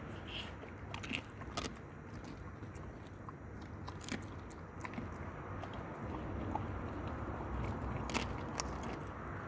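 A dog chewing and biting at chicken wing and shoulder pieces on pavement, with several sharp clicks of teeth on bone scattered through, over a steady low rumble.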